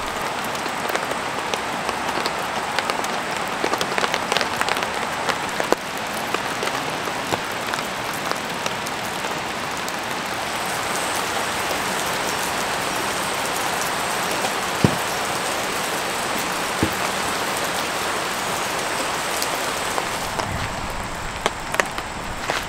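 Steady rain pattering, with many single drops ticking sharply over an even hiss of rainfall.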